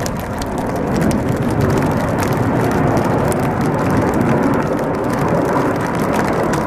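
Jet roar from the Red Arrows' BAE Hawk T1 trainers and their Adour turbofans as they fly away from the display line, a steady rumble that grows a little louder about a second in.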